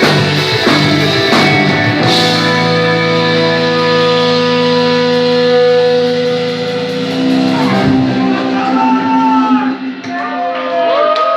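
Live rock band with electric guitar, bass and drums ending a piece: a few drum hits in the first two seconds, then a final chord held and ringing out. About eight seconds in the chord gives way to short, high, gliding whistles.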